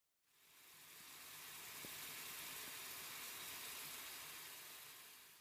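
Balsamic vinegar boiling hard in a small pan, reducing: a faint, steady bubbling hiss that fades in and fades out.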